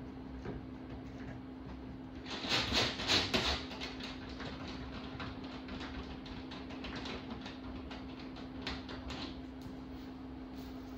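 Small clicks and creaks from a glue-pull dent-lifter bridge being screwed up against its pull tab on an aluminium bonnet, with a cluster of rapid crackly clicks about two seconds in and scattered lighter clicks after, over a steady low hum.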